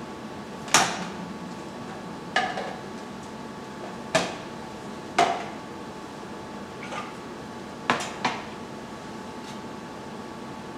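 Waring LiquiLock food processor being taken apart by hand: its plastic cover, work bowl and grating disc knock and clack as they are lifted off and set down on the counter, about six separate hits a second or two apart.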